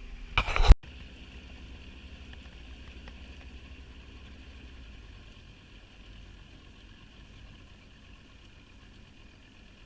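Small boat outboard motor running, a steady low drone that grows fainter after about five seconds. A short, loud knock about half a second in is the loudest sound.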